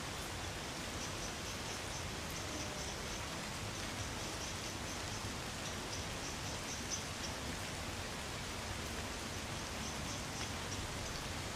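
Light rain falling steadily on trees, an even patter of drops. Faint high chirps come and go above it.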